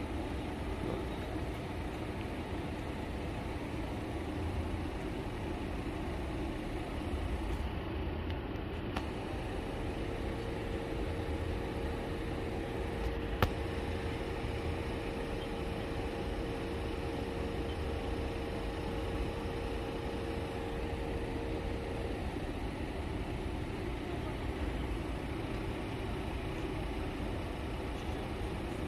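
Steady low rumble of an idling engine. A faint steady hum comes in about ten seconds in and stops a little past twenty seconds, and a single sharp click sounds around thirteen seconds.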